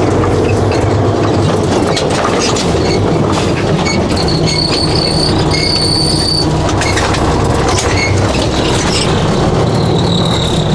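Diesel semi truck running steadily, with brief high squeals about halfway through.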